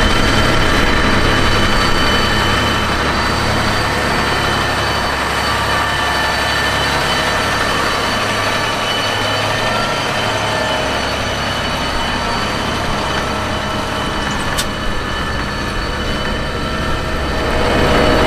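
John Deere 8370RT tracked tractor's diesel engine running steadily under ploughing load, a low rumble with a steady whine from the drivetrain and tracks. The low rumble eases briefly about halfway, and a single sharp click sounds near the end.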